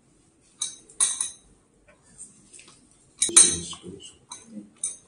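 Pliers clicking and clinking against the metal trigger mechanism of a motorcycle airbag vest as it is reset after a deployment: a few sharp clicks in the first second or so, then a louder clatter and knock a little past three seconds in, and smaller knocks near the end.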